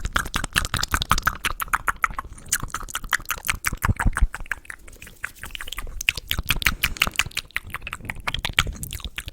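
Close-miked ASMR mouth sounds: rapid wet clicks and smacks of the tongue and lips, many per second without pause.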